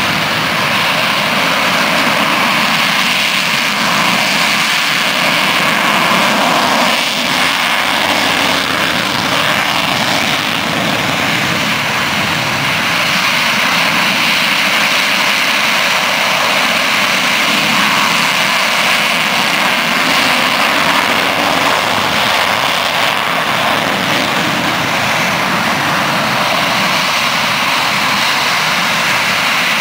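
Panavia Tornado's twin RB199 turbofan jet engines running steadily and loudly as the jet taxis on the runway before take-off.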